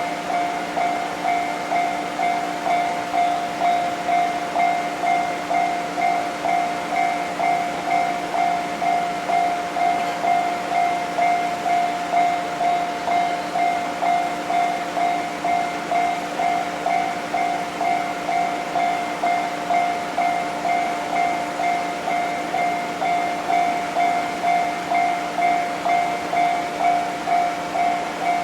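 Japanese railway level-crossing electronic warning bell ringing continuously in an even, repeating ding.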